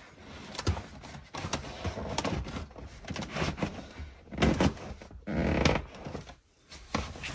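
BMW E46 M3 rear bench seat cushion being pulled up against its plastic retaining clips: upholstery rubbing and shifting with scattered knocks and clicks, loudest in two bursts about four and a half and five and a half seconds in.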